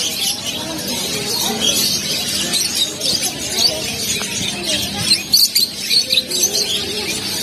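Many caged small birds, budgerigars and cockatiels among them, chirping and twittering in a busy chorus of quick, high notes, over a murmur of people's voices.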